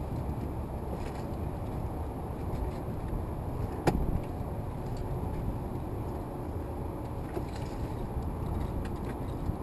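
Wind rumbling on the microphone over the open water, with a single sharp knock about four seconds in.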